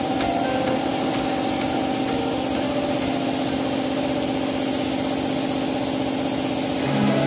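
Air spray gun hissing steadily as paint is sprayed onto a car body panel, with a steady low hum beneath it.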